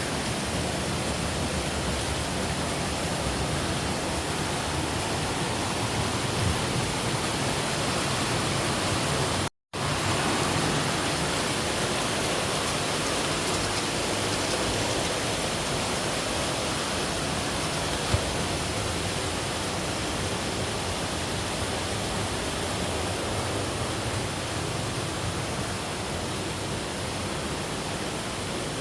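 Steady rushing of falling water, an even roar with no distinct strokes. It cuts out for a split second about ten seconds in, then carries on unchanged.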